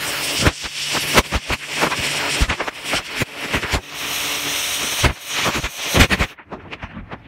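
High-pressure washer jet blasting a brick: a loud steady hiss of spray, broken by sharp crackling spatter, that cuts off about six seconds in.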